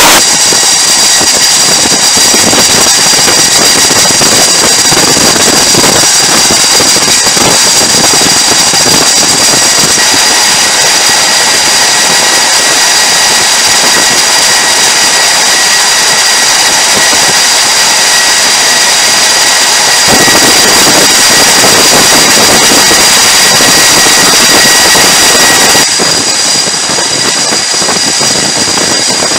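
Jet engines running on a carrier flight deck: a loud, steady roar with a high-pitched turbine whine. The mix shifts slightly about two-thirds of the way through and again near the end.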